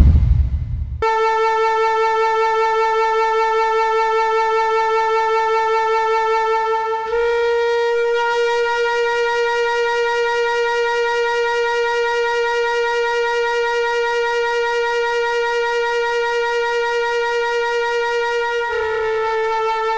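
Dramatic background music: the tail of a loud hit fades away in the first second. Then comes one long held, reedy wind-like note that steps slightly higher about seven seconds in and drops back near the end.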